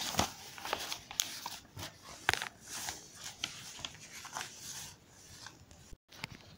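Quiet, irregular small clicks and soft rustling, with no voice.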